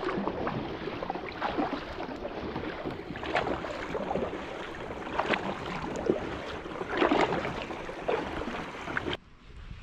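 Water splashing and sloshing around a fishing kayak, with frequent small knocks and splashes, cutting off suddenly about nine seconds in.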